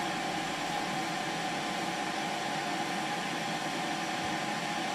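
Steady whirring hum and hiss of an electric desoldering station (solder sucker) left running.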